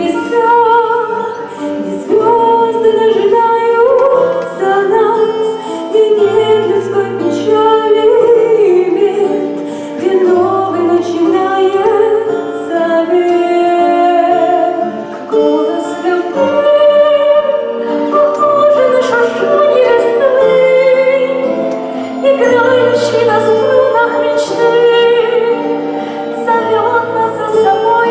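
A song from a stage musical: a woman sings a melody over a sustained instrumental backing with held bass notes.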